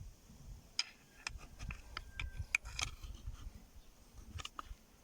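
Small sharp metallic clicks and light scrapes of a tool working at the retaining ring inside a Lada Granta steering rack housing, about a dozen irregular ticks with a brief squeak about two seconds in.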